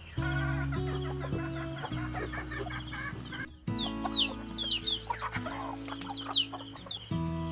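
Chickens clucking and small birds chirping over background music of held low chords; the sound drops out briefly about three and a half seconds in.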